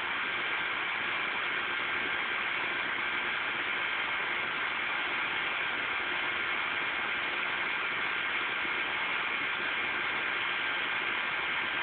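Steady, unchanging hiss with a high buzzing tone running through it: constant outdoor background noise.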